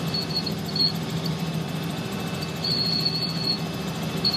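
Helicopter cabin noise in flight: a steady low drone from the engine and rotor over rushing air. A thin, high-pitched whistling tone comes and goes over it, in short pieces and one longer stretch about three seconds in.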